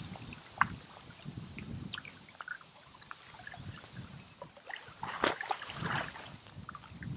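Shallow lake water splashing and trickling around a large common carp and the angler's hands as the fish is held in the margin for release. There are small drips and sloshes throughout, and a louder splash about five seconds in.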